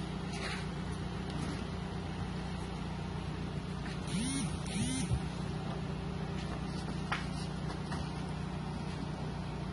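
Steady, low engine hum of an idling motor, with two short rising-and-falling voice-like calls about four and five seconds in.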